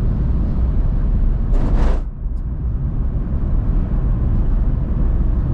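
Steady low rumble of a car's engine and tyres at road speed, heard from inside the cabin, with a brief rushing whoosh a little under two seconds in.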